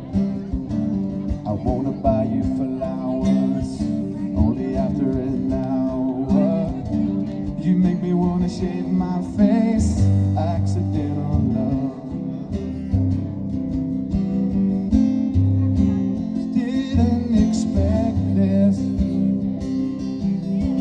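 Music: a song with strummed acoustic guitar and bass, playing without a break.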